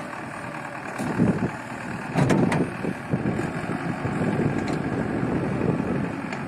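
JCB backhoe loader's diesel engine running, with louder surges about a second in and again around two seconds in.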